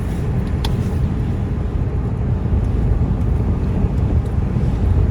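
Steady low rumble of a car on the move, engine and road noise heard from inside the cabin, with a faint click about half a second in.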